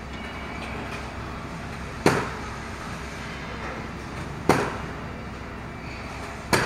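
Building-site work: three sharp bangs, about two seconds apart, each with a short ringing tail, over a steady low machinery hum.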